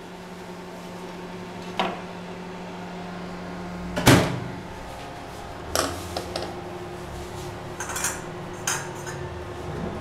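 Convection microwave oven humming steadily with its door open while its round metal baking tray is taken out. There is a short knock about two seconds in, a loud clank about four seconds in as the tray comes out, another knock near six seconds as it is set down on the counter, then a few faint taps.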